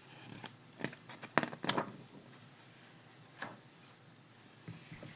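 A few short clicks and taps from handling a hardcover picture book, several close together about a second in and one more a couple of seconds later, with faint rustling near the end.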